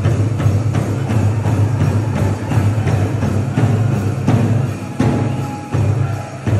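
Powwow drum music: a large drum struck in a steady, even beat. Near the end the beat breaks into a few single, heavier strikes.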